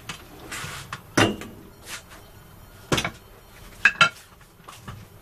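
A few sharp metallic clinks and knocks of kitchenware against a steel pot: one about a second in, another near three seconds, and a quick double clink about four seconds in. The clinks ring briefly.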